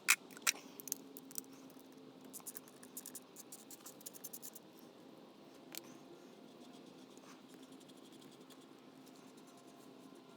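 A few sharp clicks, then a run of light quick scratchy ticks and one more click, from small parts being handled by hand at the workbench.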